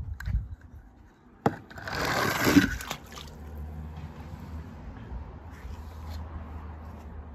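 A small die-cast toy car clicks, scrapes and splashes into water, a noisy burst of about a second. A low steady hum follows.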